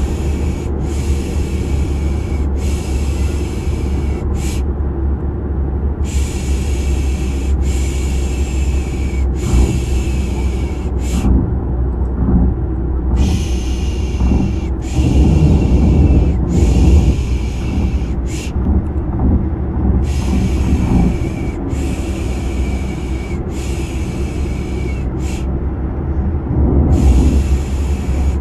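Rhythmic shushing for soothing a baby: three long 'shh' sounds and a short one, the group repeating about every seven seconds, over the steady low rumble of a car's engine and road noise.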